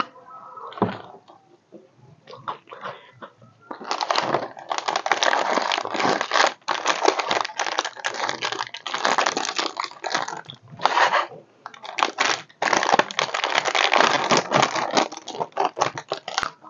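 Crinkly plastic snack packet being handled and torn open by hand. It makes a dense, loud crackle starting about four seconds in, with a few short pauses.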